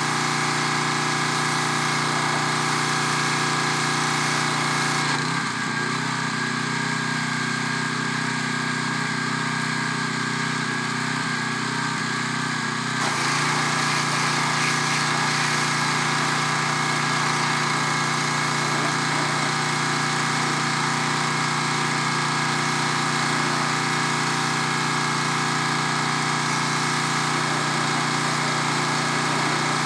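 Pressure washer's engine running steadily under load with the hiss of the spray, a little quieter for several seconds from about five seconds in.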